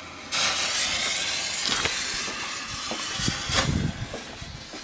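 Ground fountain firework catching from its fuse about a third of a second in with a sudden rush, then spraying sparks with a steady loud hiss broken by a few sharp crackles.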